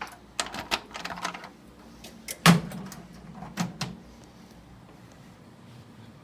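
A run of sharp clicks and knocks: a quick cluster in the first second and a half, one loud knock about two and a half seconds in, and two more just before four seconds.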